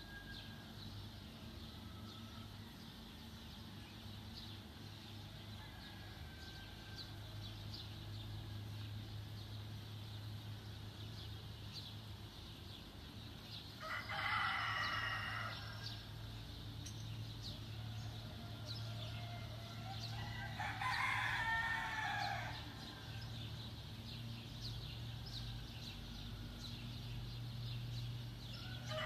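A rooster crowing twice, about halfway through and again some seconds later, with another crow starting at the very end. Small birds chirp faintly throughout over a steady low hum.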